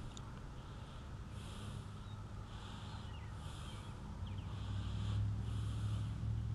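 Close breathing through the nose, in soft hissing breaths about once a second, close to the microphone. Under it, a low hum grows louder about four seconds in.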